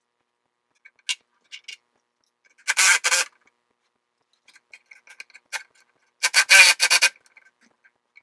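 Socket ratchet clicking as a bolt is tightened, in two quick loud runs, about three and about six and a half seconds in, with a few lighter metal clicks and taps between.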